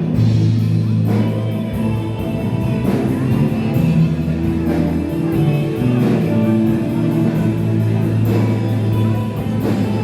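Rock music with electric guitar, held bass notes and a steady drum beat.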